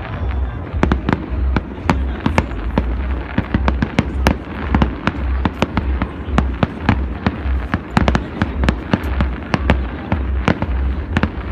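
Fireworks display going off in a rapid, continuous volley of sharp bangs and crackles, several a second.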